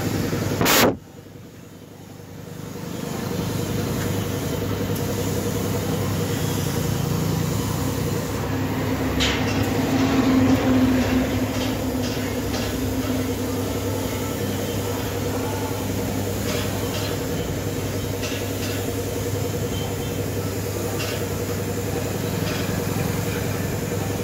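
Gravity-feed paint spray gun hissing as it sprays a car's lower door panel, over the steady hum of the air compressor that feeds it. A sharp click just under a second in is followed by a quieter stretch, and the full hiss and hum return about three seconds in.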